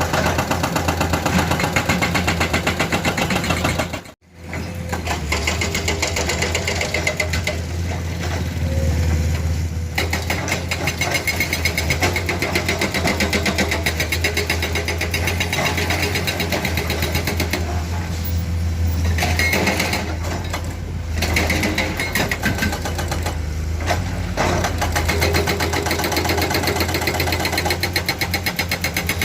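Heavy-equipment diesel engine running close by with a rapid, even clatter and a deep hum. The sound cuts out briefly about four seconds in, then carries on.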